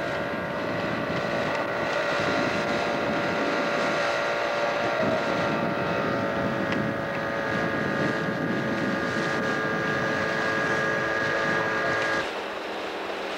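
Outboard motor of a coaching launch running steadily, with a whine over a rumbling hum and some wind on the microphone. About twelve seconds in the motor sound drops suddenly to a quieter level.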